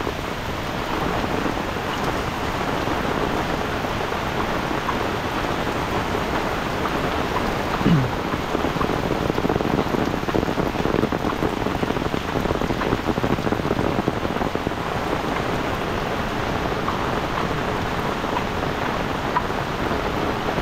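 Heavy rain pouring steadily onto the road and trees.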